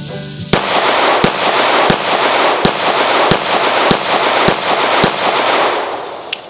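Remington R51 9mm semi-automatic pistol fired eight times in a steady string, about two-thirds of a second between shots, with the echo of each shot filling the gap to the next.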